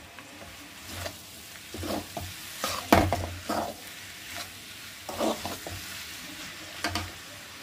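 A metal spoon scraping and stirring bitter gourd, onions and dry spices around an aluminium kadhai, mixing the masala into the fried karela, over a light sizzle of oil. The scrapes come irregularly, the loudest about three seconds in.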